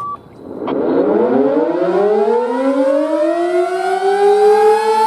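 American Signal Sentry 15v2T outdoor warning siren winding up from a standstill. Its pitch rises steeply, then levels off into a steady full-alert tone. A short click comes just under a second in.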